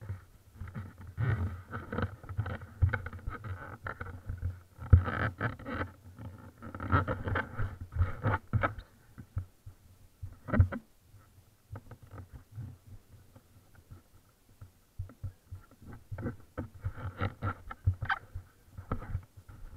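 Handling noise of an action camera in its housing as it is carried and moved about: irregular muffled bumps, knocks and rubbing, busiest in the first half and again near the end.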